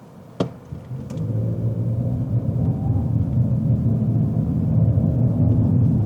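Two sharp clicks, then a low vehicle engine rumble that builds about a second in and runs on steadily, with a faint rise in pitch.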